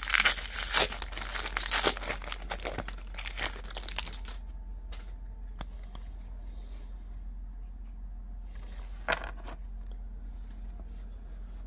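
Plastic foil wrapper of a Topps baseball card pack being torn open and crinkled, a dense crackle full of sharp snaps over the first four seconds that then dies down to faint ticks.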